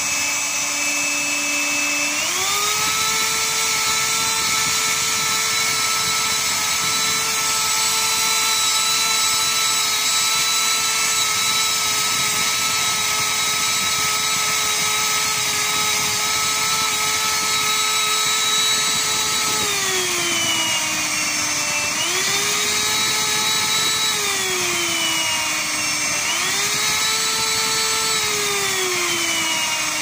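The 1500-watt motor of a Samsung VC6015V vacuum cleaner is running, its power set by moving the regulator's slide control with pliers. The whine steps up to a higher speed about two seconds in and holds. In the last third it drops and climbs twice before settling at a lower speed near the end, showing the cleaned power regulator works, if crudely.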